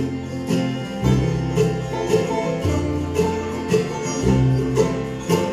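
Bluegrass band playing an instrumental fill with no singing: banjo, mandolin and acoustic guitar picking, with fiddle, over upright bass notes changing about once a second.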